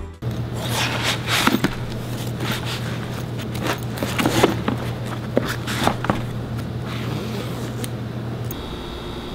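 A backpack being packed with painting gear: a plastic panel-carrier box and other items handled and pushed in, giving irregular rustling, scraping and knocks.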